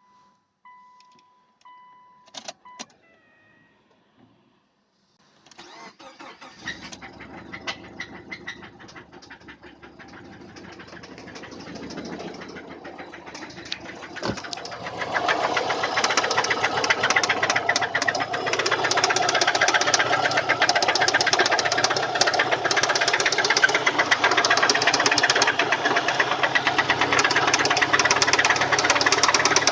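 A few short electronic beeps, then a Subaru EJ204 2.0-litre flat-four is cranked and starts. It runs with a rapid metallic knock and gets louder about halfway through. The knock is a connecting-rod knock, from a spun rod bearing on cylinder one.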